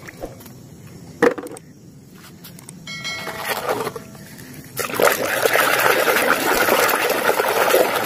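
Hand scrubbing and swishing a muddy toy car in a tub of water: a steady splashing churn that starts about five seconds in, after a quieter stretch with a couple of knocks.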